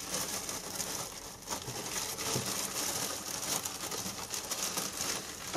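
A thin plastic bag rustling and crinkling continuously as hands work bare-root strawberry plants out of it.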